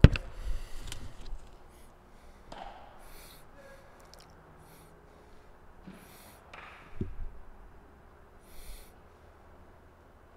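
A single sharp crack of a bat hitting a baseball on an infield ground-ball drill, followed by a few fainter knocks over a quiet outdoor background.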